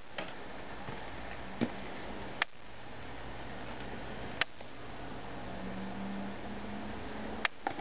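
A shrink-wrapped Blu-ray box set being picked up and turned over by hand: a few short sharp clicks and taps of the plastic-wrapped case, two of them close together near the end, over a steady hiss and low hum.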